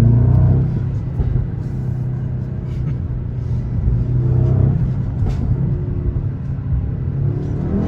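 Mercedes-AMG GLS 63's twin-turbo V8 engine running steadily with a low hum, its pitch rising briefly a few times.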